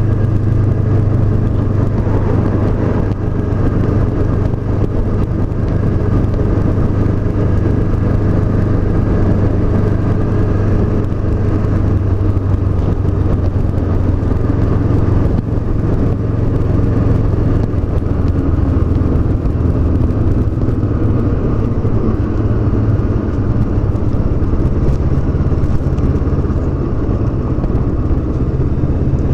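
Honda CB500X's 471 cc parallel-twin engine running at a steady cruise under a rider, its pitch holding level with only small changes in throttle.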